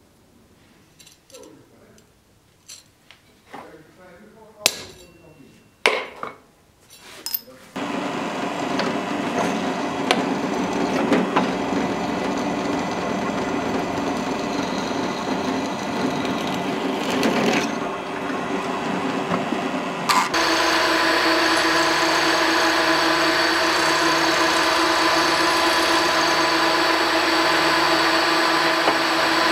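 A steel bar being marked out by hand with a scriber, with light scrapes and a few sharp taps. From about 8 s in, a drill press runs as a twist drill cuts through the steel bar. From about 20 s in, a milling machine runs steadily with a whine as an end mill cuts the steel.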